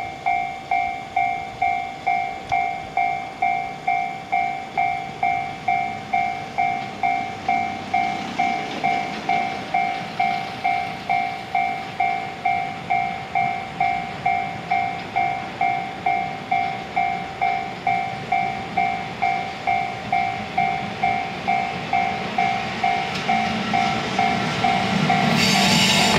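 Railway level-crossing warning bell ringing steadily at about two dings a second while a freight train approaches. The rumble of the EF210 electric locomotive and its container wagons grows louder, and near the end the train passes close, its wheel and rail noise and locomotive hum swamping the bell.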